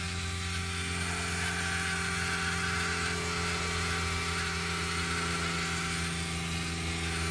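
Small electric fuel pump running with a steady buzzing hum while bleeding a Humvee's diesel fuel system, sucking air out of the lines. Frothy diesel mixed with air hisses out of the outlet hose into a bucket.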